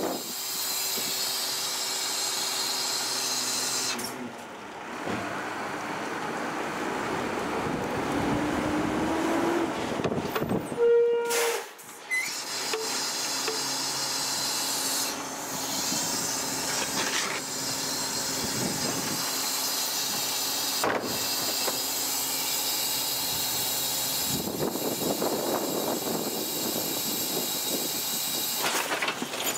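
1995 Ford L8000 garbage truck's engine running and its rear packer working through a slow cycle, the blade sweeping down into the hopper; the throttle advance is malfunctioning, so the packer runs slow. About eleven seconds in comes a short, loud burst of air hiss.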